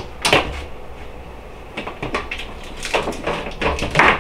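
Several sharp knocks and clatters as air fryer plugs are pulled from wall outlets. The loudest comes about a third of a second in and another near the end.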